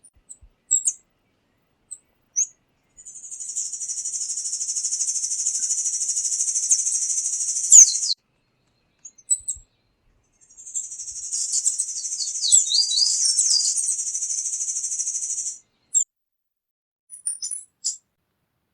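A tanager singing two long, high, rapid trills, each lasting about five seconds and swelling in at the start, with a few short high chips between and after them.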